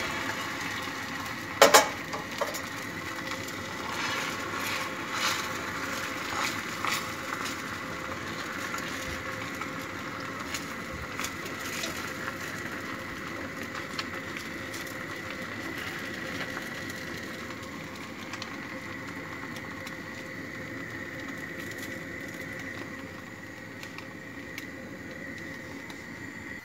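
Egg frying in a hot pan, a steady sizzle that slowly dies down. A loud sharp knock comes near the start, followed by a few smaller clicks in the next few seconds.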